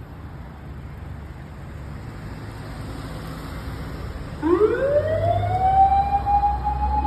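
Fire engine's mechanical motor siren winding up about four and a half seconds in: its pitch glides up, then holds steady and loud, over a low rumble.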